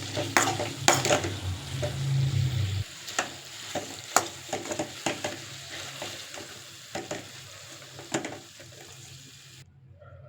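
Chicken frying in hot oil in a pan, sizzling steadily while a utensil stirs it, with repeated clicks and knocks against the pan. A low hum stops about three seconds in, and the sizzle cuts off suddenly near the end.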